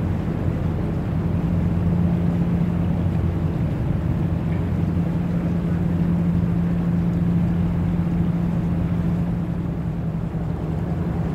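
Steady low drone of a ship's engine, a constant hum with a deeper rumble beneath it that fades about halfway through.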